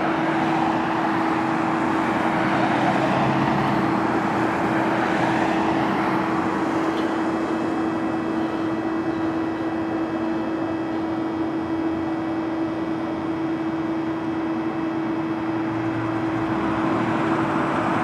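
Steady street and traffic noise with a constant low hum; a car drives past at the start.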